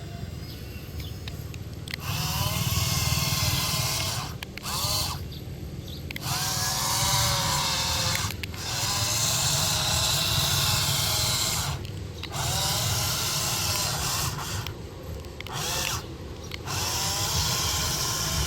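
Small electric motor of a toy excavator whirring in bursts of a few seconds, starting and stopping repeatedly, its pitch wavering as it works.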